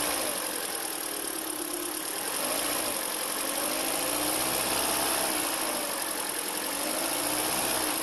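2013 Hyundai Elantra's 1.8-litre four-cylinder engine running smoothly, its pitch rising and falling gently a few times as it is revved up a little. There is no misfire: the engine runs normally now that a faulty fuel injector has been replaced.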